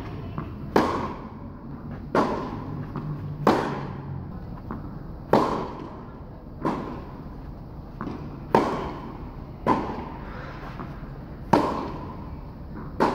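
Tennis rally on an indoor hard court: rackets strike the ball back and forth with a sharp hit about every second and a half. Softer ball bounces fall between the hits, and each hit rings on in the echoing hall.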